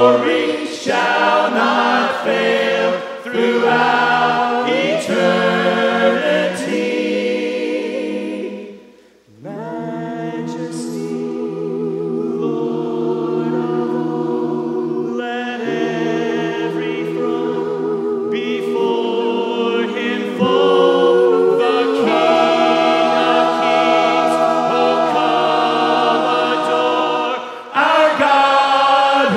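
Mixed-voice a cappella worship team singing a hymn in harmony. The singing breaks off briefly about nine seconds in, returns softer on long held chords with vibrato, and swells louder again about twenty seconds in.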